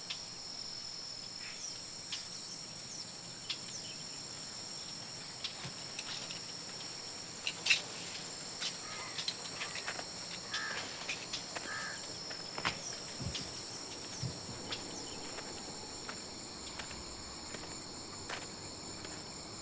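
Steady high-pitched insect chorus, with scattered faint clicks and a sharper click about eight seconds in.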